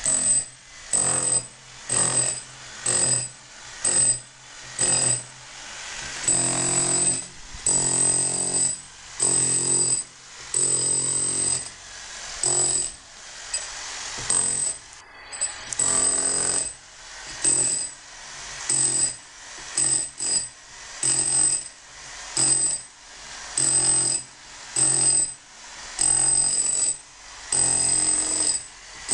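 Corded electric hammer with a chisel bit chipping into a plastered masonry wall to open out a crack, run in short bursts about once a second with a high motor whine in each burst. There is a brief pause about halfway through.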